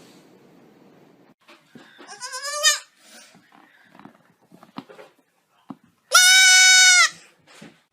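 A goat bleating twice: a shorter, wavering call about two seconds in, then a loud, long, steady scream about six seconds in that lasts about a second.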